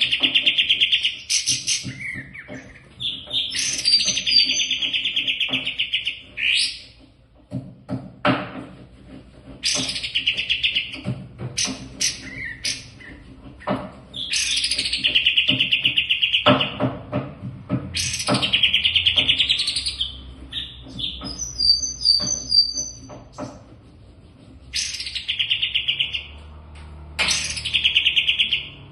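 A caged songbird singing in repeated fast, trilled phrases, each about one to three seconds long, with short gaps and sharp clicking notes between them.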